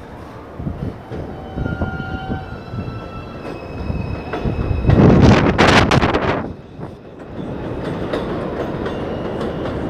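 Electric subway train pulling out of an elevated station and accelerating away: wheels rumbling on the track under a motor whine that climbs in pitch in steps. About five seconds in there is a loud rush of clattering noise for a second or so, which then falls back to a rumble.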